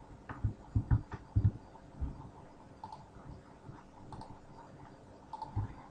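Quiet clicking of a computer keyboard and mouse while a variable name is typed into a field, with a handful of clicks in the first second and a half and a few faint ones near the end.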